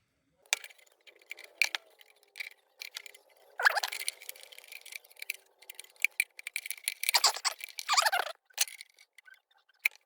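Gaffer tape ripping, two rasping pulls about four and seven seconds in, amid small clicks and rattles of handling pliers.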